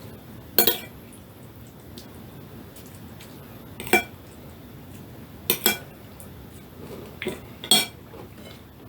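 Cutlery clinking against a plate while eating: about six sharp, separate clinks spread out over several seconds, two of them in quick succession about halfway through.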